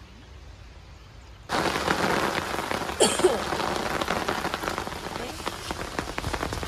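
Rain falling steadily, a dense hiss full of small drop ticks, coming in suddenly about one and a half seconds in after fainter rain noise; a brief louder sound about three seconds in.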